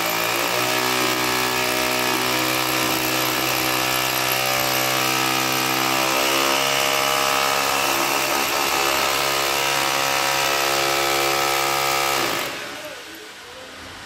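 Handheld electric drill running steadily with an even motor whine as it bores into the window frame, then stopping suddenly about a second and a half before the end.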